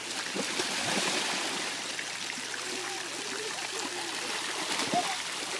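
Steady rushing and splashing of swimming-pool water as children wade and play in it, with faint children's voices here and there.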